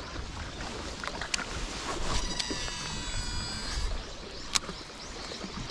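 Baitcasting reel spool whirring for under two seconds during a cast, its pitch falling slightly as the spool slows. A single sharp click follows about four and a half seconds in, over a low rumble.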